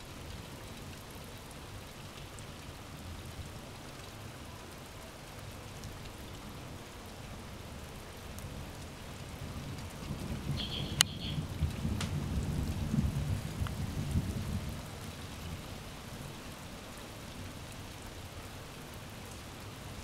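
Steady rain falling. About halfway through, a low rumble of thunder rolls in, swells for a few seconds and fades away. A single sharp click comes as the rumble builds.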